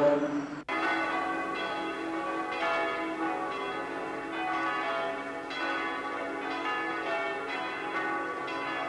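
Church bells pealing: several bells of different pitch struck over and over, their tones ringing on and overlapping. They come in suddenly after a group's chanting breaks off under a second in.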